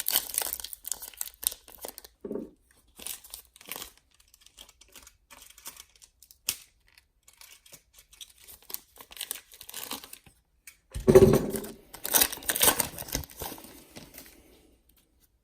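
Wrapper of a trading-card pack being crinkled and torn open in uneven bursts, loudest about eleven seconds in.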